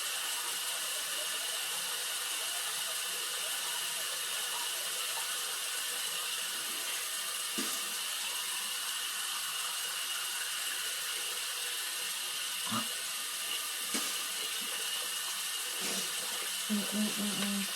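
Bathroom tap running steadily into a sink, with a few light knocks.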